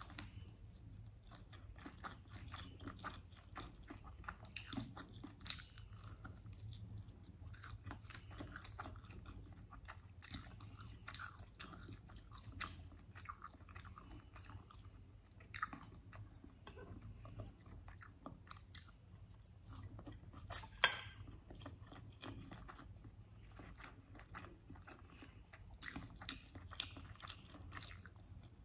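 Close-miked chewing and biting of chicken wings: irregular wet mouth clicks and small crunches, with a couple of sharper, louder clicks, over a low steady hum.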